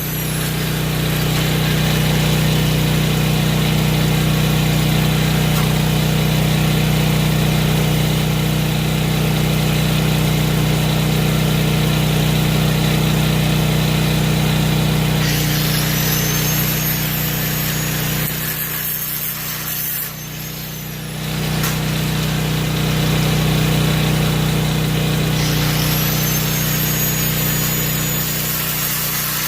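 Harbor Freight electric angle grinder running at full speed, a steady motor whine under a hissing grind as it cuts, easing off briefly about two-thirds of the way through.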